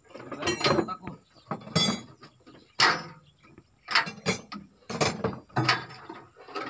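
Irregular sharp metallic clinks and knocks, about one or two a second: hand tools striking steel parts of an articulated dump truck while its steering orbitrol unit is being worked on.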